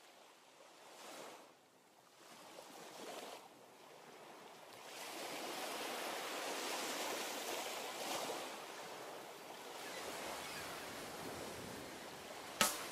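Surf washing onto a sandy beach: small waves breaking and running up the sand, fading in and swelling and ebbing a few times, fuller from about halfway. A single sharp hit sounds just before the end.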